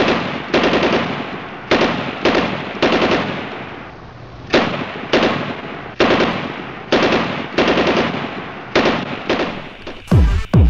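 Intro soundtrack of about a dozen loud, sharp gunshot-like bangs at uneven spacing, each ringing out for up to a second or more. Near the end a thumping electronic kick-drum beat starts.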